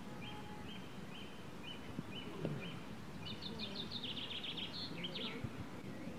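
Birdsong outdoors: a row of short repeated notes about twice a second, then a quicker run of higher chirps. There is a low steady background, and a brief knock about two and a half seconds in.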